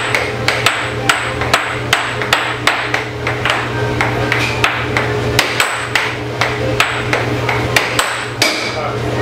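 Puck striking the mallets and rails of a Tornado air hockey table in fast play, a sharp knock about every half second, over the steady hum of the table's air blower.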